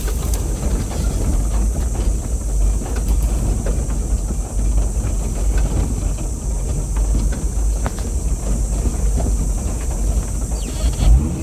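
Vehicle driving slowly over a rough dirt bush track: low engine and tyre rumble with scattered knocks and rattles from the bumpy ground, and a steady high hiss throughout. A heavier jolt comes near the end.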